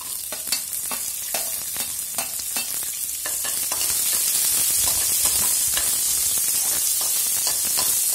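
Sliced shallots and garlic sizzling in hot oil in a pressure pan as they are sautéed, with a spatula scraping and clicking against the pan while stirring. The sizzle grows louder and steadier about halfway through.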